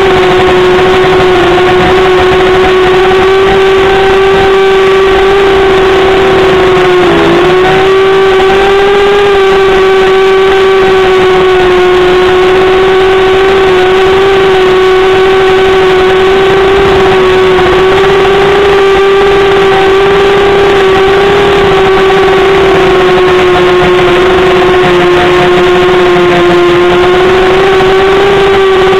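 Motors and propellers of a small six-rotor hexacopter, heard from its onboard camera, running with a steady whine. The pitch dips briefly about seven seconds in, then holds level.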